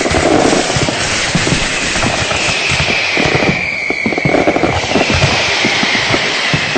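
Firecrackers going off in a dense, continuous barrage of rapid overlapping bangs and pops. High whistling tones slide slowly down in pitch over the top.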